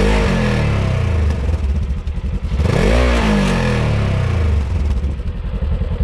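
Polaris RZR S 1000's 999 cc parallel-twin engine revved through its muffler: coming down from a rev at the start, a second rev about three seconds in, then settling to a rough idle near the end.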